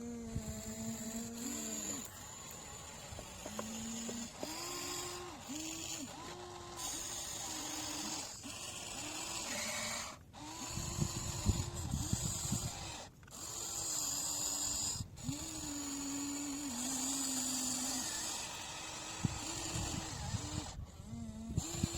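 Small electric motors of radio-controlled construction models whining, their pitch swooping up and settling again in short spurts of a second or two, over a scratchy crackle of soil and gears that grows louder around the middle and near the end.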